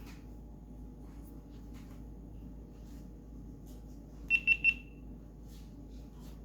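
Three quick, high electronic beeps from a GoPro Hero 7 Black camera, its confirmation signal during a reset of its wireless connections.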